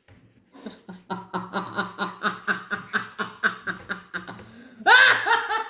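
Women laughing hard: a run of rhythmic chuckles, about four a second, then a louder, higher-pitched laugh breaks in near the end.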